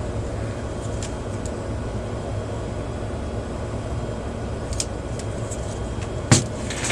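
Steady low hum, like a fan or motor running, with a few faint clicks and one sharp knock about six seconds in.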